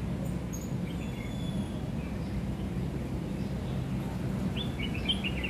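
Steady low background hum with a few faint, thin high-pitched chirps early on, and a short run of quick chirping notes near the end.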